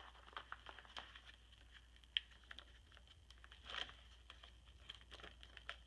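Faint rustling and crinkling of plastic page protectors as scrapbook album pages are turned by hand, with a single sharp click about two seconds in and a louder rustle near four seconds.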